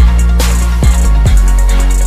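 Instrumental backing music with deep bass kicks that drop in pitch and rapid ticking hi-hats.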